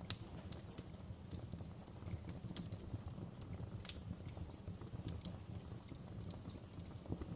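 Fire crackling: irregular sharp pops and snaps, a few every second, over a steady low rumble.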